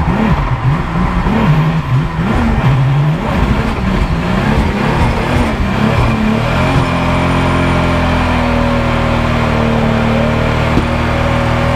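3.4-litre Toyota Supra race car engine heard from inside the cabin, its revs rising and falling quickly again and again under throttle. A little past halfway it settles into a steady, even drone.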